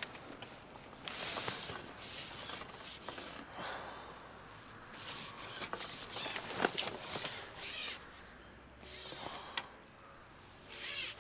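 Irregular rustling and rubbing noises in several short spells, with a few light clicks: handling noise close to the microphone.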